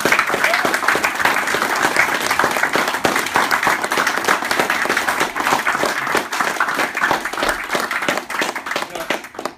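A small crowd applauding: many hands clapping densely and steadily, stopping abruptly near the end.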